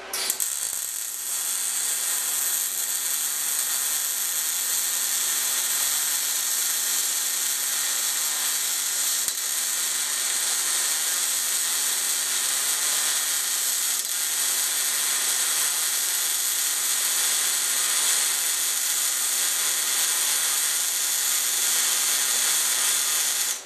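Kemppi MIG welder's arc on .030" wire in short-arc transfer, set to roughly 200 inches a minute wire feed at about 100 amps on 110 V. One continuous weld: the arc strikes suddenly, runs steadily for about 23 seconds and cuts off at the end, with a faint steady hum beneath it.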